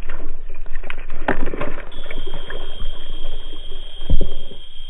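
Water splashing and churning as a small hooked pike thrashes and jumps at the surface. A steady high whine joins about two seconds in.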